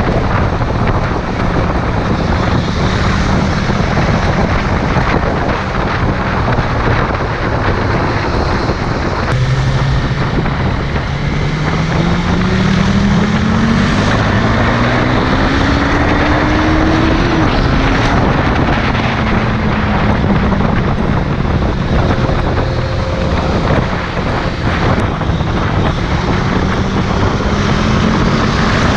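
Motorcycle engine running under heavy wind rush on the microphone while riding. About ten seconds in, the engine's pitch climbs steadily as it accelerates, then drops back near the middle.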